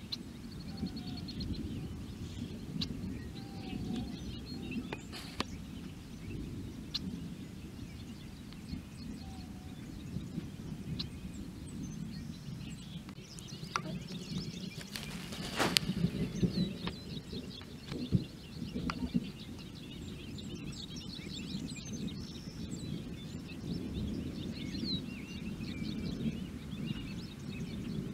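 Small birds chirping and twittering over a continuous low rumble of distant rolling thunder, with one brief louder burst about halfway through.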